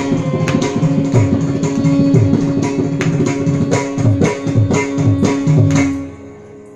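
Carnatic music: quick mridangam strokes, the bass strokes bending in pitch, over a long held note. About six seconds in the playing stops together and only a fading ring remains, as the piece ends.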